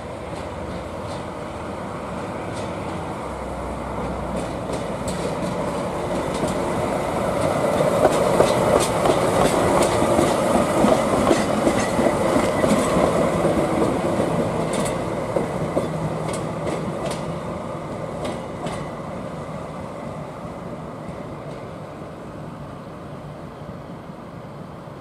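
JR DE10 diesel-hydraulic locomotive running light past at low speed, its engine running and its wheels clacking over rail joints. The sound builds to its loudest about halfway through, then fades as the locomotive moves away.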